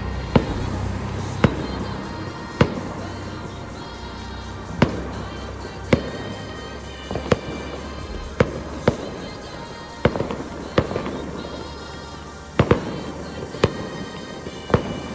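Fireworks going off: about fifteen sharp bangs at irregular intervals, several in quick pairs, with music playing underneath.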